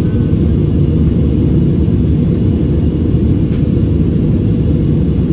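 Steady low rumble inside an Airbus A320-216's cabin in flight: its CFM56 turbofan engines and the airflow over the fuselage.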